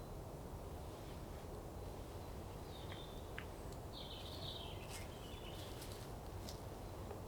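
Forest ambience: a steady low rush of background noise with a few short bird chirps near the middle and some faint clicks.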